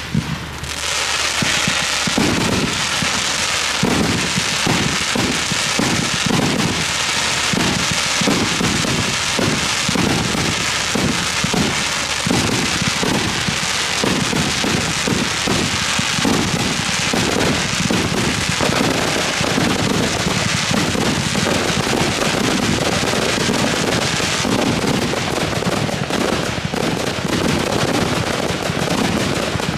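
Fireworks going off: a dense, continuous crackling with rapid low launch thumps about twice a second, the thumps giving way to steadier crackling after about two-thirds of the way through, and the high crackle thinning near the end.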